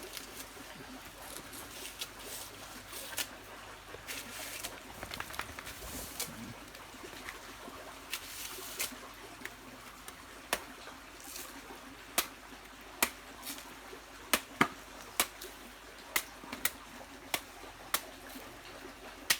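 Green jelly coconut being chopped open with a machete: a run of about a dozen sharp knocks in the second half. A stream trickles under it.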